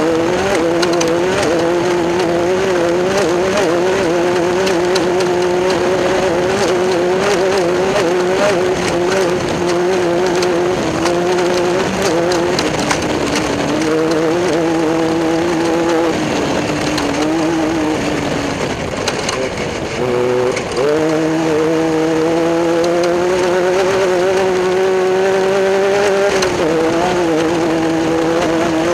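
Class 10 off-road race buggy engine running hard at high revs. The pitch sags from about 13 s, drops sharply near 20 s as the throttle comes off, then climbs back up as it accelerates again. Rapid clicks and rattles run through it throughout.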